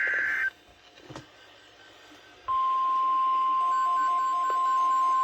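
The end of an EAS SAME header data burst, a harsh digital warble that cuts off about half a second in. After a pause of about two seconds, the steady 1050 Hz NOAA Weather Radio alert tone starts and holds, with a faint pattern of short repeated notes under it.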